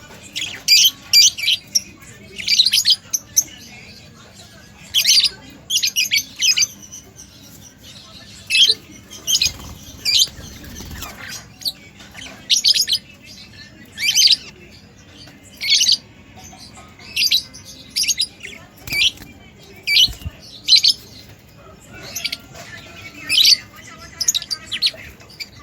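Budgerigars chirping: short, high, scratchy chirps in quick clusters, repeating irregularly about once a second.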